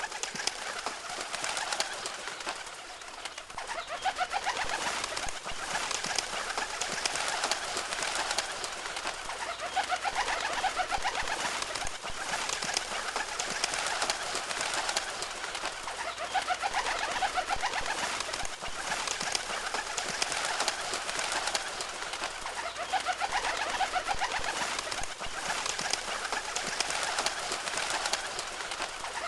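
A flock of birds calling, a dense, continuous chorus of overlapping calls.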